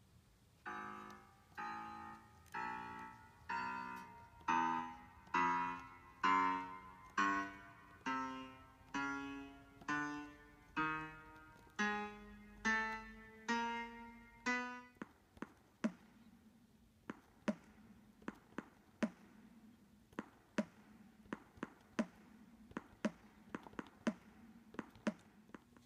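Electronic keyboard-like notes played one at a time, about one a second, each struck and then dying away, triggered from the pad buttons of an Arduino-based MIDI controller. About fifteen seconds in, the notes give way to a run of sharp clicks over a faint steady low tone.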